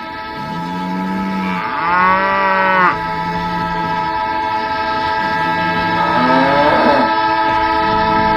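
A cow moos loudly about two seconds in, with a fainter second moo around seven seconds. Both sound over a steady, long-held train horn.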